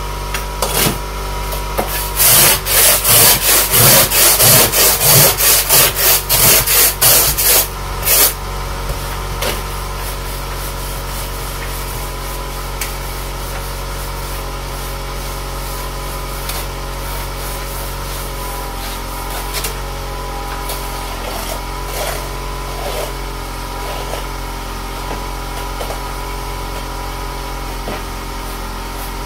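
Ice scraper scraping frozen snow and ice off a car's side window in a rapid run of rough strokes, about two a second, for some six seconds, then only light, scattered brushing. A steady hum runs underneath throughout.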